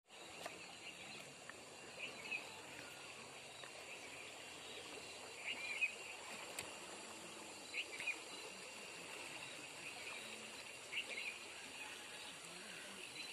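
Quiet rural outdoor ambience: scattered short bird chirps, a dozen or so, over a steady high insect drone and faint background hiss.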